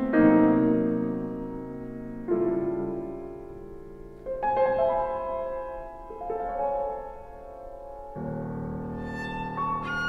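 Viola and grand piano playing slow classical music: long held bowed viola notes over sustained piano chords, with a new low piano chord entering about eight seconds in.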